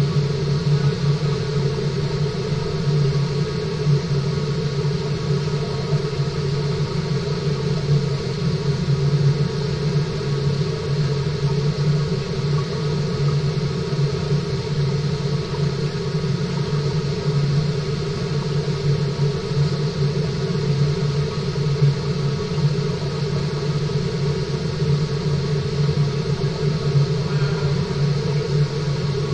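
Steady low hum with a constant rush of moving water, from the water circulation of a fish-farming tank.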